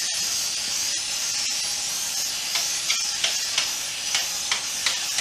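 Gravity-feed compressed-air paint spray gun spraying, a steady high hiss of air and paint mist; from about halfway through it comes in a string of short louder spurts, two or three a second.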